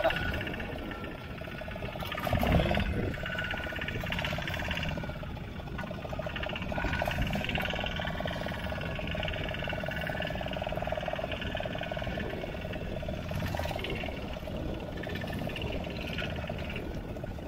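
A small fishing boat's outboard motor running steadily while under way, with water rushing past the hull.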